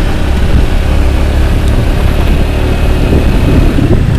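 Motor scooter being ridden, its engine running steadily under a heavy low rumble.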